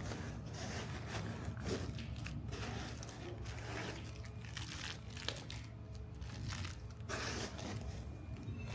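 Packaging being handled: irregular crinkling, rustling and tearing of plastic and cardboard, over a steady low hum.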